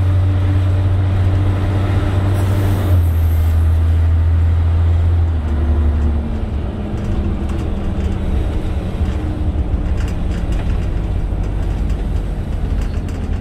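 Cabin noise of a 1996 Scania L113 bus on the move: a steady low engine drone that eases off about five to six seconds in as the bus slows toward its stop, leaving lighter running and body noise.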